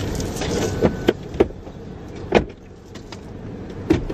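Steady hum inside an idling car's cabin, with several sharp clicks and knocks of things being handled by the driver, the loudest about two and a half seconds in.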